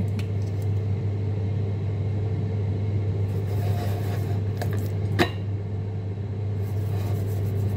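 Steady low hum of an air fryer running while it preheats, with the light rustle of a spice shaker shaken over steak and a sharp click about five seconds in.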